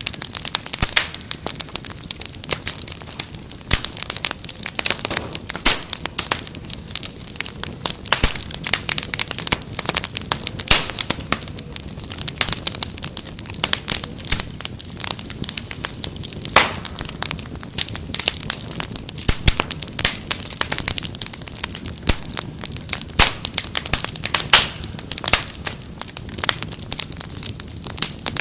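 Wood fire crackling steadily, with many sharp irregular pops and snaps over a soft hiss.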